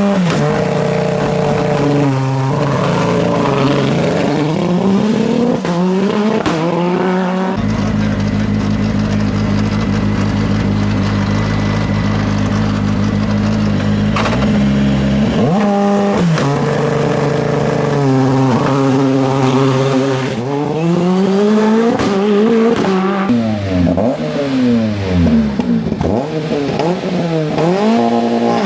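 Hillclimb race car engines at the start: revs held steady on launch control, then a launch and the car pulling away through the gears, the engine note climbing and dropping at each upshift. Partway through, the next car holds its revs steady for several seconds before launching and pulling away in the same way.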